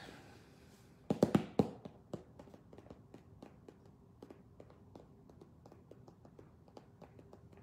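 Typing on a computer keyboard: a few loud taps about a second in, then a run of light, quick keystrokes.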